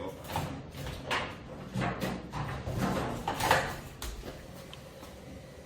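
Small cardboard prize boxes handled and shaken, giving a series of irregular dull knocks and rustles that fade out about four seconds in; no clear key rattle is heard.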